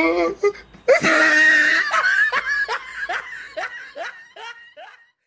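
Laughter: a loud burst of laughing about a second in, then a run of short "ha" sounds, each falling in pitch, that fade out near the end.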